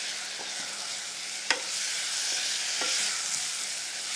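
Sprouted moth beans and onion-masala paste sizzling in oil in a stainless steel pressure cooker while a wooden spatula stirs them, with a steady sizzle and a few knocks of the spatula against the pan, the sharpest about one and a half seconds in.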